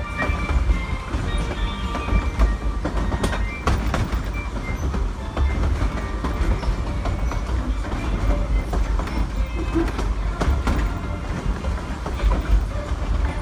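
Narrow-gauge passenger train cars rumbling and clattering over the rails, heard from an open car, with a continuous low rumble and irregular wheel clicks.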